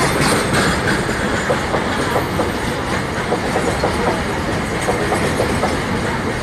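Double-stack container freight wagons rolling past with a steady running noise, punctuated by the repeated clickety-clack of wheels over rail joints.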